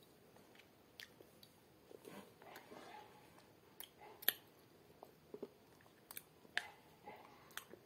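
Quiet chewing and eating sounds from people eating pickle with a spoon from a plastic bowl, with a few sharp clicks scattered through.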